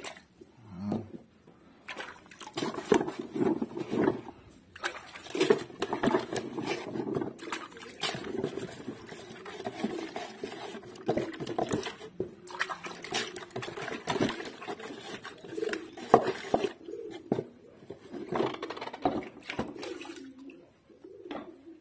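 Water splashing and sloshing as a hand scrubs in the muddy water filling a plastic toy truck's bed, with irregular knocks and rubbing on the plastic.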